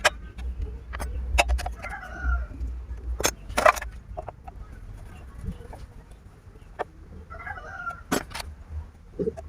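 Chickens clucking a couple of times, among a scatter of sharp clicks and knocks.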